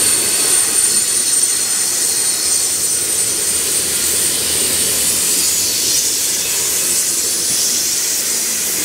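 Covered grain hopper cars of a freight train rolling past, their steel wheels on the rails giving a steady rushing noise with a thin high ring that fades in the second half. The last car goes by near the end.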